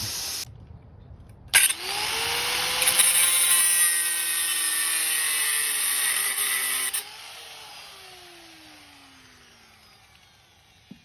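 A handheld power tool switches on with a click about a second and a half in. Its motor spins up to a steady whine under a loud, harsh hiss, is released about seven seconds in, and winds down with a slowly falling tone.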